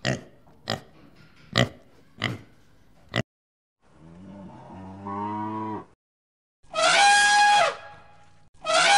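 A pig grunting five times in short, sharp grunts, then a cow mooing once in a low, drawn-out call. Then an elephant trumpets, the loudest sound, with a second trumpet beginning near the end.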